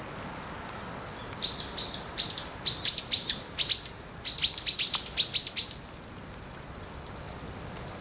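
White wagtail calling: a run of about fifteen short, sharp, high chirps, each sweeping downward, given in quick clusters from about a second and a half in until about six seconds in.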